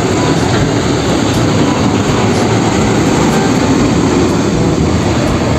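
A heavy vehicle engine running steadily, a low, even noise.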